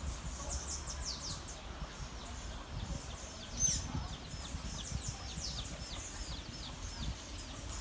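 Small birds chirping: a steady run of short high notes, each sliding downward, several a second, with one sharper chirp about halfway through. A low breeze rumble runs underneath.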